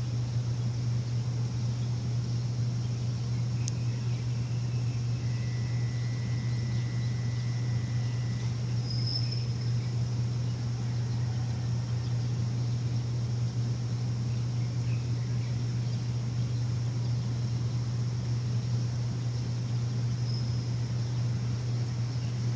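A machine's steady low hum runs without a break. Faint high bird chirps come through twice, about nine seconds in and near the end, and a thin whistle-like tone is held for a few seconds early on.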